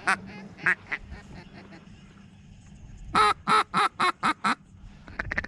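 Duck call blown by a hunter calling in ducks: a few quacks, then a loud run of six quacks about three seconds in, falling off into a fast chatter near the end.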